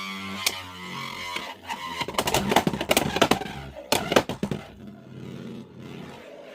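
Soar Phoenix Beyblade X top spinning in a plastic stadium just after a string-launcher launch, with a whirring hum that falls in pitch at first. Sharp clicks and knocks come as it strikes the stadium walls, thinning out after about four seconds.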